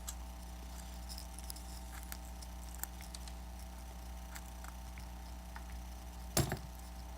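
Light scattered clicks and ticks of plastic pry tools working at an iPad Air 2's display assembly, with one louder knock about six seconds in, over a steady low electrical hum.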